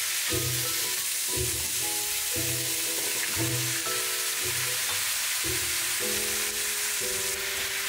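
Thin-cut pork sizzling in a frying pan as it is stir-fried and broken apart with a spatula, with eggplant and onion going into the pan about halfway through. Light background music with a bass note about once a second plays under the frying.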